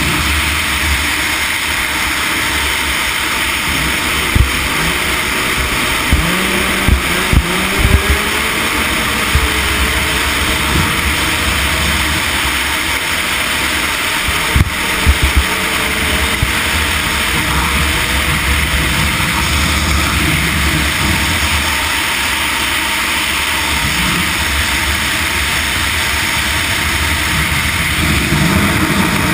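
Yamaha Nytro RTX snowmobile's four-stroke three-cylinder engine running flat out at high speed, under a steady rush of noise. Several sharp thumps come through in the first half.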